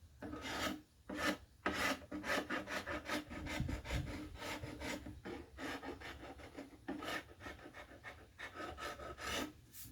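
Chisel blade scraping a wooden tabletop in repeated short strokes, about two or three a second, taking off gray residue and old finish.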